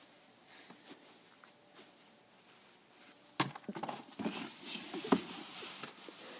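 Faint quiet for the first half, then from about halfway a run of irregular knocks, scuffs and rustles as a large cardboard box is bumped and pushed by someone crawling into it on the grass, with one sharp knock louder than the rest near the end.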